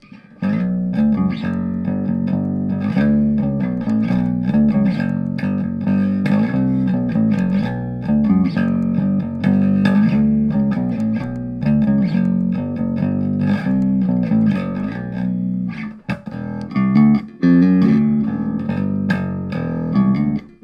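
Squier Affinity Precision Bass played fingerstyle through a Fender Rumble 15 practice amp: a continuous bass line of plucked notes, with a couple of brief breaks about three quarters of the way through.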